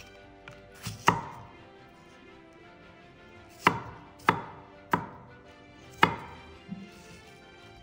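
Chef's knife chopping apple on a wooden cutting board: sharp single chops, two about a second in, then four spaced roughly half a second to a second apart through the middle, and a lighter one after.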